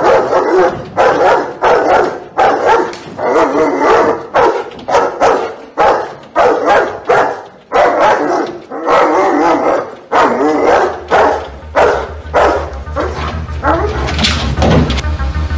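German Shepherd barking over and over, about two barks a second. Electronic music with a steady low beat fades in for the last few seconds as the barking thins out.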